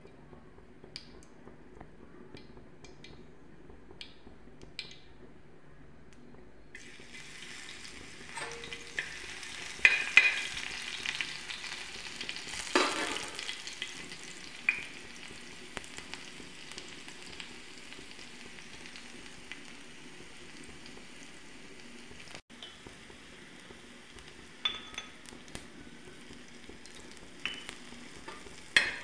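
Hot oil sizzling in a pan as seeds and then spices are fried in it, with a few sharp clinks and scrapes of a spoon against the pan. The first few seconds hold only a few faint ticks; the steady sizzle starts about seven seconds in.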